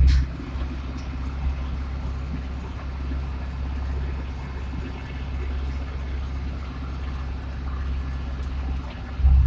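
Tractor engine running steadily while the tractor drives along a paved road, a deep low drone. It swells briefly louder at the very start and again near the end.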